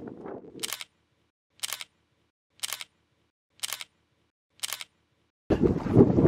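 Camera shutter clicking five times, about a second apart. Near the end, wind buffets the microphone.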